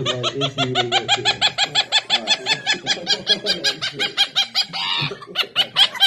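Quaker parrot (monk parakeet) laughing: a long run of quick, high-pitched 'ha' sounds, about five a second, with a brief break about five seconds in.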